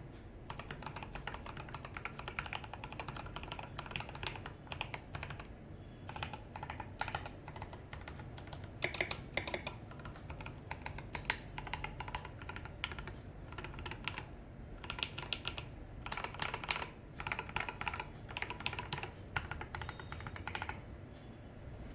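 Typing on an IDOBAO ID80 mechanical keyboard fitted with 67 g Durock Koala tactile switches: quick runs of keystrokes, each a sharp click, with a short pause about six seconds in and another near the end.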